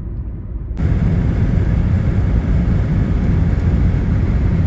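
A moderate road rumble inside a moving car. About a second in, it cuts to the louder, steady rumble of a jet airliner flying low overhead.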